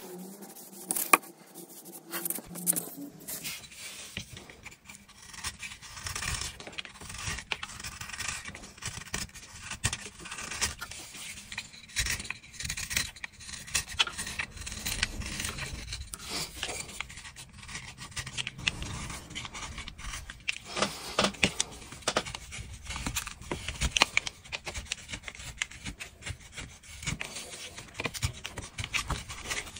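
Rubbing and scraping strokes of a lure body being shaped by hand with an abrasive tool, quick and irregular, starting about three seconds in.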